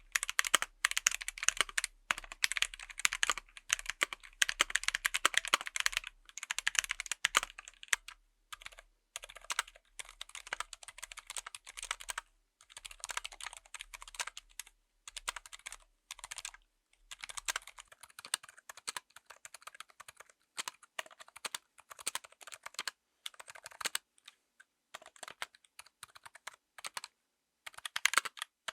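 Typing on a full mechanical keyboard with tactile switches: fast runs of key clacks in bursts, broken by short pauses.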